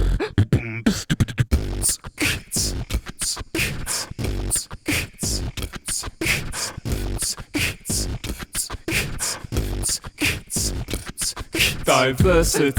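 Vocal beatboxing in the 'boots and cats' pattern: a steady beat of deep 'b' kick sounds and sharp hissing 'ts' snare and hi-hat sounds, made with the mouth.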